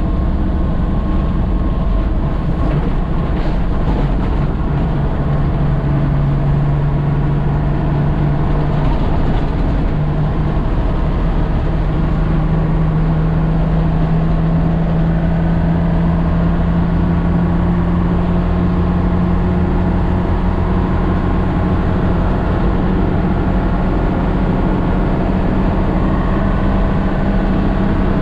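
Nissan CK31L heavy truck's diesel engine running steadily under way, its note shifting slightly a couple of times.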